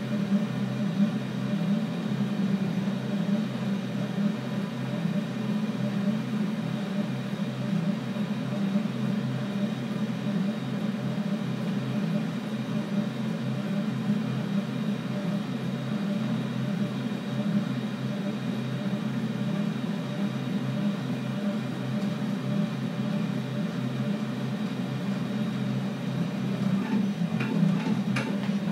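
Delta 3D printer's closed-loop stepper motors running a print at speed: a steady whirring hum that wavers as the print head moves, with a few light ticks near the end.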